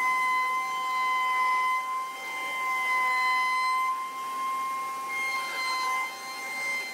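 Table-mounted router spinning a bearing-guided chamfer bit and routing the edge of a hand-fed wooden board: a steady high-pitched whine that dips slightly now and then.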